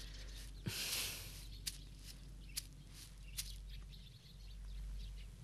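Faint outdoor ambience with scattered short bird chirps over a low steady hum, and a brief rustle about a second in.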